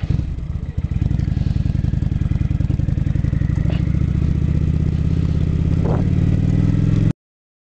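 Kawasaki Vulcan 900 Classic's V-twin engine running steadily as the motorcycle is ridden, heard from the rider's seat. The sound drops out abruptly for a moment near the end.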